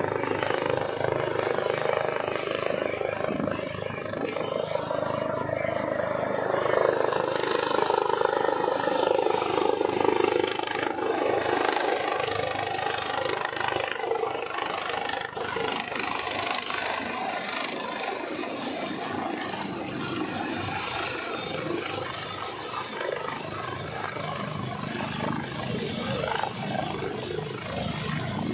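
Helicopter coming in to land, a continuous rotor and engine noise that swells for a few seconds early in the descent and then holds steady as it nears the ground.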